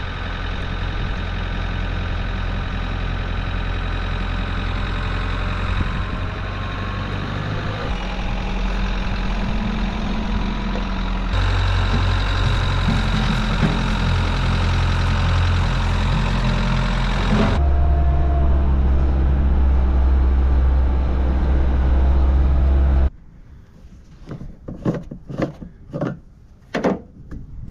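Tractor engine running steadily, its note changing abruptly a few times, until about 23 seconds in it gives way to quieter scattered knocks and clatter.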